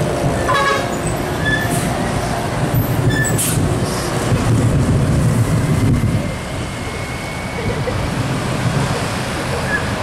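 Tourist bus engine rumbling as the bus climbs past on a bend, loudest a few seconds in and then fading, with a few short horn toots near the start.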